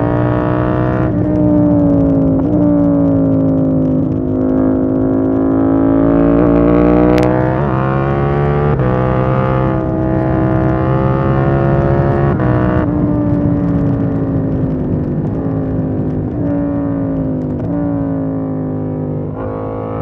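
KTM 890 Duke R's parallel-twin engine pulling the bike along, its pitch climbing and falling with the throttle and breaking with several sudden drops as it changes gear. A low rumble of microphone noise runs underneath.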